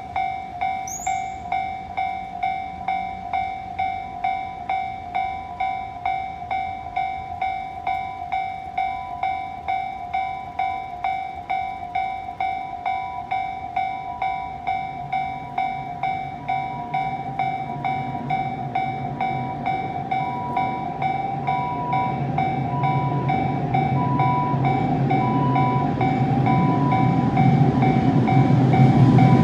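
Japanese level-crossing warning bell ringing, a steady pitched clang repeating about one and a half times a second. From about halfway through, the rumble of an approaching train rises beneath it and grows steadily louder to the end; the train is JR Freight's Super Rail Cargo electric freight train.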